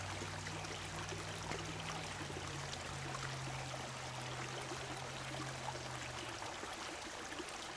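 Shallow creek water trickling steadily over rocks. A faint low hum runs underneath and stops about six seconds in.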